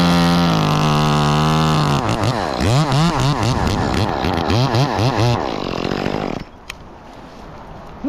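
Top-handle chainsaw held at full throttle cutting through the cedar trunk to top the tree, then revved up and down in short surges as the cut is finished. It drops away sharply about six seconds in, when the top comes free.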